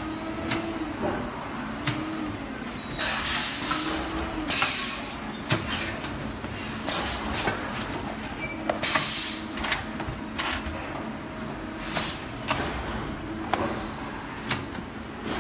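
A high-frequency welding machine at work: its pneumatic press gives repeated short hisses of released air, with clicks and knocks, over a steady low hum.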